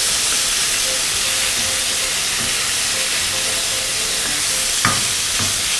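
Ground pork sizzling in a hot pan of oil and sauces while it is stirred, a steady frying hiss, with a sharp spatula knock against the pan about five seconds in.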